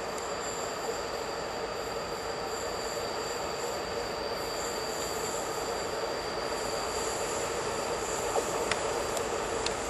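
Freight train wagons' wheels squealing steadily as the train rounds a curve, a few high tones held over the running noise of the train, with a few sharp clicks near the end.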